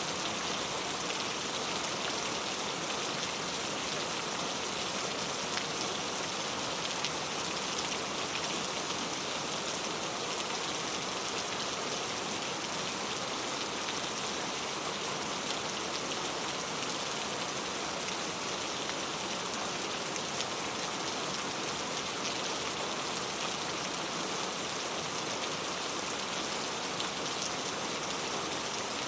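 Steady rain falling, an even hiss with many small drop ticks, unchanging in strength.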